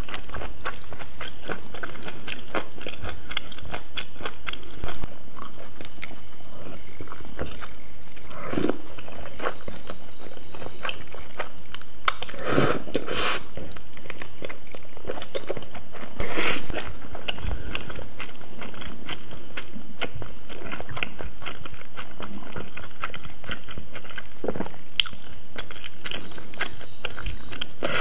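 Close-miked chewing of noodles in black bean sauce: sticky mouth sounds with many small clicks, and a few louder mouth noises around the middle.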